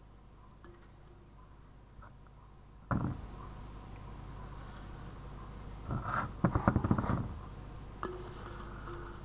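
Handling noise: a sharp knock about three seconds in, then a burst of rapid rattling clicks around six to seven seconds in, over a faint steady hum.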